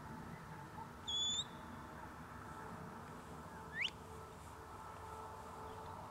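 Two sharp whistles, typical of a handler's whistle commands to a working stock dog: a short flat whistle about a second in, then a quick rising whistle just before four seconds in, over a faint steady hum.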